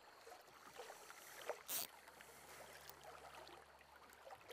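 Faint ambience of a flowing river, with a brief rushing noise a little under two seconds in.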